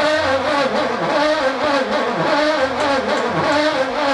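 Starter motor cranking the VK Commodore's engine, a steady whine that dips and recovers in pitch two or three times a second without the engine catching.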